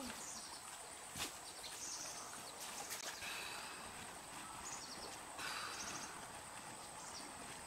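Faint outdoor ambience in riverside vegetation: a steady high-pitched whine under a soft hiss, with a few short high chirps and light clicks scattered through.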